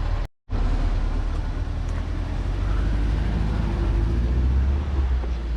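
A vehicle engine idling with a steady low rumble. A split-second gap in the sound comes just after the start.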